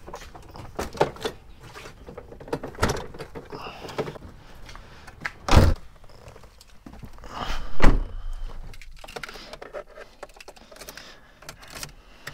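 Doors of a Toyota SUV being shut with solid thunks, the loudest about eight seconds in, among rustling and small knocks of someone climbing into the driver's seat and handling the ignition key.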